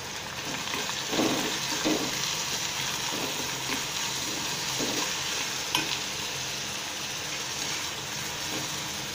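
Chopped onion frying in hot oil in a kadhai, sizzling steadily while a steel spoon stirs and scrapes it around the pan, with one sharp click about six seconds in.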